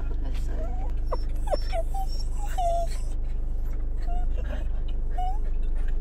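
Dog whimpering in short, high whines, about seven of them, over a steady low car-engine hum.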